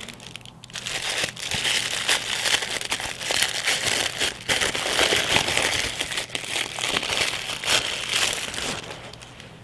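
Tan paper wrapping crinkling and rustling as it is unfolded by hand from around a pocketknife: a continuous run of small crackles.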